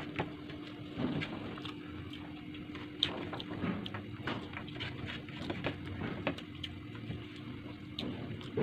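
Close-up eating sounds: chewing and small wet mouth clicks as rice and vinegar-stewed milkfish are eaten by hand. A steady low hum runs underneath.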